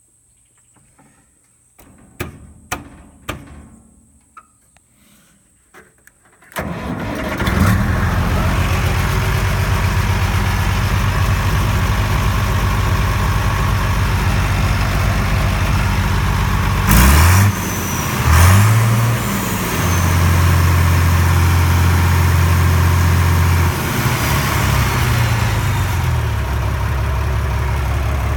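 International Harvester 1586 tractor's six-cylinder diesel engine starting after a few knocks, then running: revved up twice briefly, held at a higher speed for a few seconds, then settling back to idle. It runs steadily after sitting unused for seven years.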